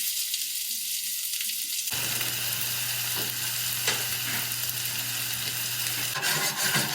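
Diced onions frying in butter and oil in a hot pan: a steady sizzle that grows fuller about two seconds in.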